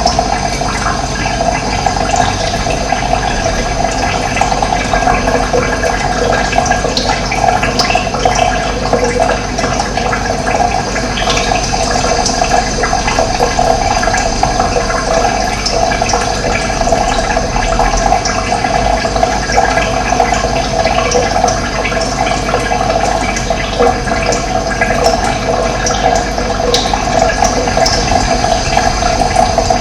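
Running water flowing steadily, a continuous dense rushing with no breaks.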